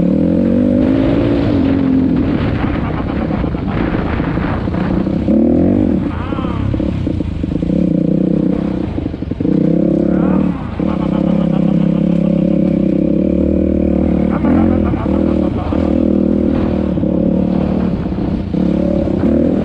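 Off-road vehicle engines running and revving, the pitch rising and falling repeatedly as the throttle is opened and closed.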